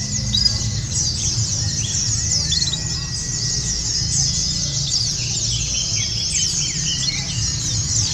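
Many white-eyes (pleci) singing at once in a dense chorus of rapid, high twittering phrases with no break, over a low background rumble.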